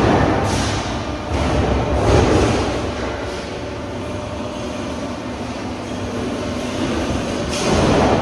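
Guimadira GHE-630 sheet-metal guillotine shear running, a steady mechanical noise that swells louder a few times: at the start, about one to two seconds in, and near the end.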